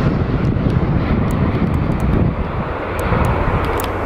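Jet engines of a landing Boeing 737 airliner, a steady low rumble as it flares over the runway just before touchdown.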